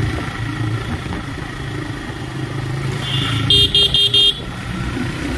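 TVS Raider 125 motorcycle engine running at riding speed, with wind and road noise on the microphone. About three and a half seconds in, a vehicle horn gives four short, quick toots.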